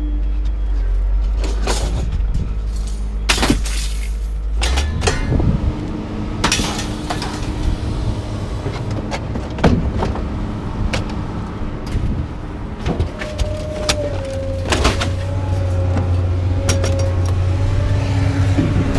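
Scrap metal banging and clanking as pieces are thrown off a truck onto a scrap pile, with a motor vehicle engine running steadily underneath.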